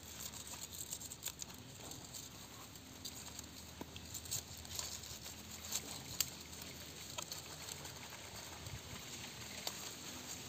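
Soft rustling and crackling of a fresh banana leaf being folded and tied into a parcel by hand, with scattered small clicks and ticks.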